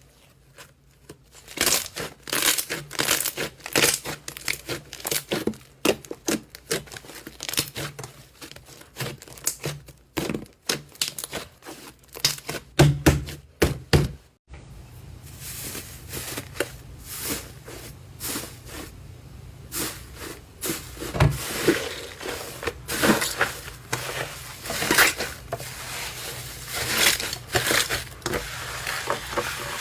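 Slime being squeezed and pressed by hand, making dense, irregular crackling pops and clicks.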